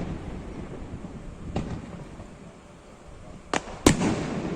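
Fireworks shells bursting: a fainter bang about a second and a half in, then two sharp booms close together near the end, the last the loudest, each trailing off in a rumbling echo.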